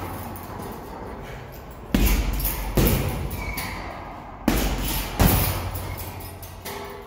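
Boxing-gloved punches landing on a hanging heavy punching bag: four hits in two pairs, one pair about two seconds in and the other about four and a half seconds in. Each thud dies away over most of a second.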